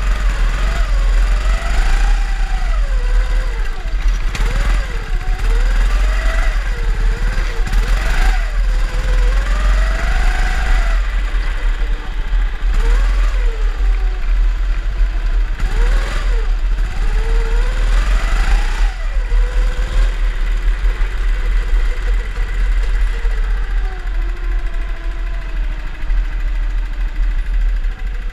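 Drift kart motor revving up and down over and over, the pitch rising and falling about once a second, with a heavy low rumble underneath. It settles to a steadier, lower note for the last several seconds.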